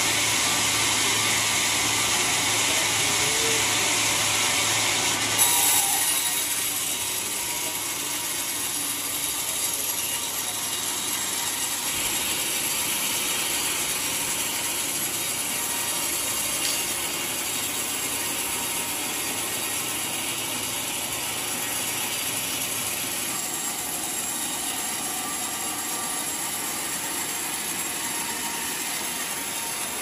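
Sawmill band saw cutting lengthwise through a large trembesi (rain tree) log: a steady, high-pitched hiss of the blade in the hardwood over the running machine, with a short knock about five seconds in.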